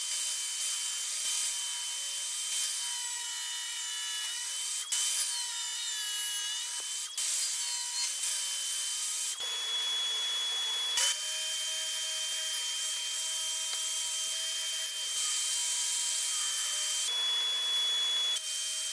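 Jobsite table saw running with a steady high motor whine, the pitch sagging briefly as the blade is loaded cutting through wood. The sound changes abruptly several times.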